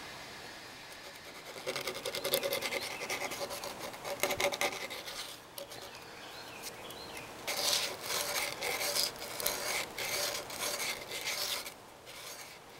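Sandpaper rubbed back and forth by hand around the edge of a hole cut in a wooden board: rapid scratchy strokes in two bouts with a short pause between, smoothing the cut edge.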